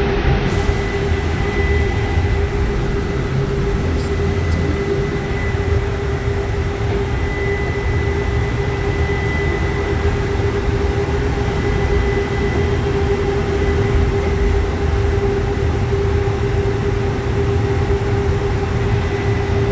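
Tempe Streetcar, a modern electric tram, running along its track, heard from inside the passenger cabin: a steady low rumble with a constant hum over it.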